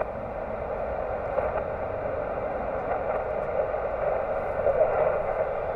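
Amateur radio transceiver's speaker hissing with steady band noise while the receiver listens for a reply to a call, no station coming through. The hiss is thin and narrow, cut off above and below like a voice channel.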